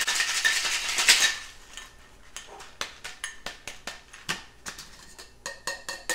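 Ice rattling hard inside a two-piece metal cocktail shaker as it is shaken, stopping about a second in. Then scattered metallic clicks and clinks as the shaker is handled and the tins are worked apart.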